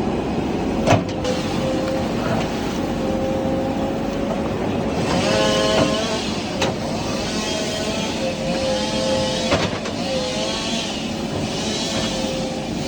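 JCB backhoe loader's diesel engine running under load, with a steady whine from the hydraulics that bends in pitch as the arm is worked. Sharp knocks sound about a second in, again past halfway, and again near ten seconds in.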